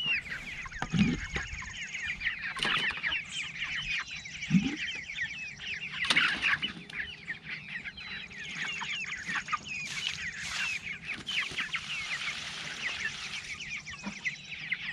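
A flock of four-week-old meat chicks peeping without pause in a dense chorus of short, high chirps, upset because they are waiting for their morning feed. A few knocks and dull thuds of plastic buckets being handled come through now and then.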